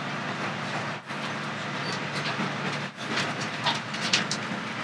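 Resort Shirakami 'Buna' train, an HB-E300 series hybrid railcar, running just after departure and heard from inside the carriage: a steady rumble of running noise with a low hum.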